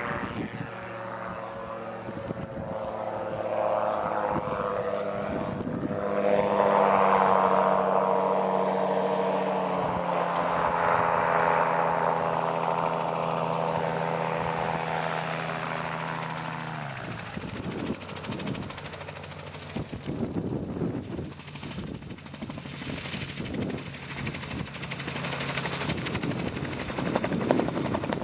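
Celier Xenon 2R gyroplane flying in on approach: its propeller engine drones, loudest as it passes close, and its pitch slides slowly down as power comes off. About 17 s in the engine tone drops away and the swishing, chopping sound of the spinning rotor takes over as it settles onto the grass.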